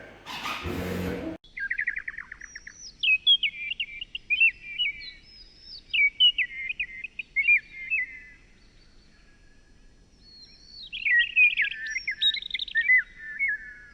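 A brief burst of noise, then a songbird singing in repeated warbling phrases of quick high notes, with a pause of a couple of seconds before it sings again.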